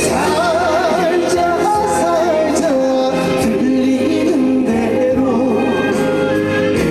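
Trot song: a male singer holding notes with wide vibrato over an instrumental accompaniment, amplified through a PA.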